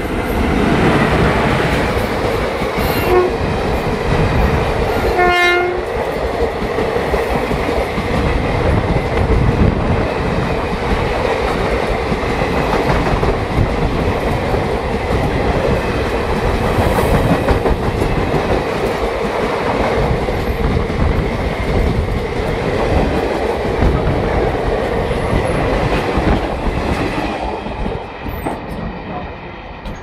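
WAP4 electric locomotive's horn sounding as an express train passes on the adjacent track, with a short blast about five seconds in, while its coaches rush past with wheels clattering over the rail joints. The din fades near the end as the train draws away, heard from alongside on another train.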